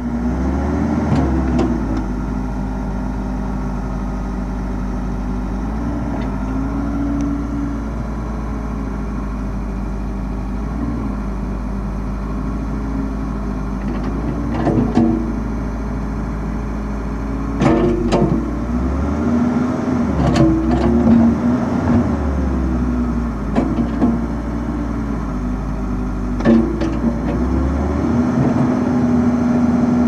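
Case 580 Super L backhoe's four-cylinder diesel engine running steadily while its hydraulics work the backhoe boom and bucket. The engine note bends and dips as the hydraulics take load. From about halfway on, several sharp clunks come from the boom and bucket.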